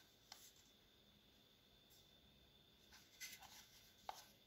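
Near silence with faint handling noise: a few light clicks and rubs from a plastic cordless-drill battery pack being turned over in the hand. One comes just after the start, a short flurry about three seconds in, and a sharper click just after.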